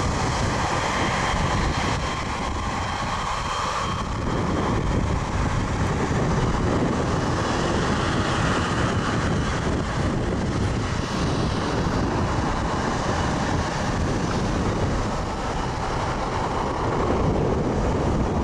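Twin-engine jet airliner turbofans running, a steady rush of engine noise that changes in tone about four seconds in.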